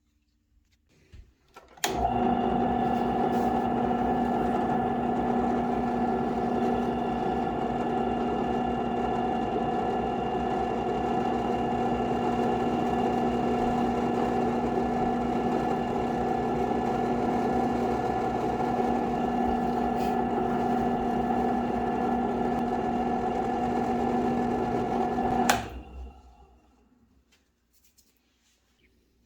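Electric wood lathe motor switched on, running at a steady speed with a constant whine, then switched off and spinning down near the end.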